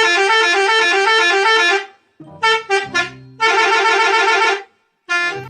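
Indonesian 'telolet' bus horn tune: a long run of notes stepping up and down, then three short toots and another long run of stepping notes, with the tune starting again near the end.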